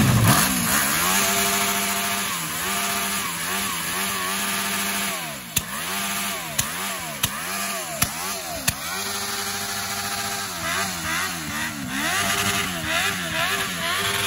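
Sport motorcycle engine held at high revs during a burnout, its rear tyre spinning on the tarmac; the revs keep dipping and recovering. Around the middle, about five sharp cracks come in quick succession.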